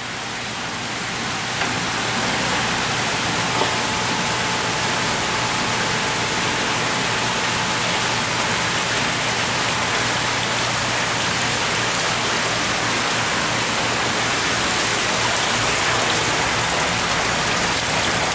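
Steady splashing hiss of water circulating in a seawater holding tank, over a low steady pump hum.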